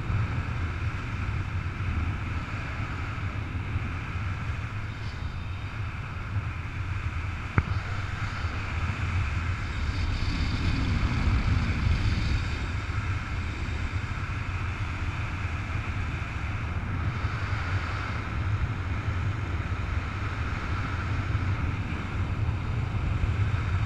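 Steady wind rushing over the action camera's microphone as the paraglider flies, a heavy low rumble with a hiss above it. A single sharp click about seven and a half seconds in.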